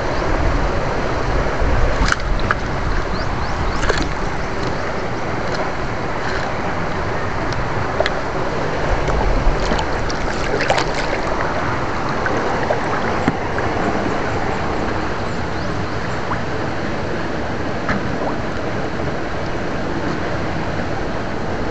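Shallow water sloshing and splashing steadily, with scattered small clicks and splashes.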